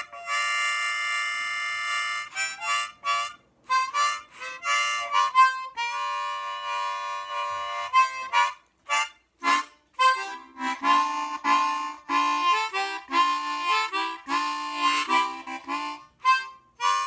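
12-hole Hohner Super Chromonica chromatic harmonica played as a short blues in third position without the slide: a chord held for about two seconds, then runs of short tongued notes and chords, with another long chord about halfway through.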